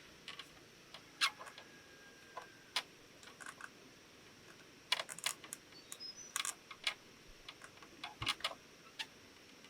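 Scattered light clicks and taps of hard objects being handled, irregular and a few a second at most, busiest around the middle and again near the end, over a faint steady high hiss.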